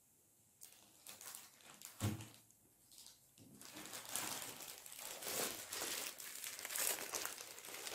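Clear plastic wrapping crinkling as a wrapped Logitech MK275 keyboard is handled: scattered crackles at first, then steady crinkling from about halfway through. A dull knock comes about two seconds in.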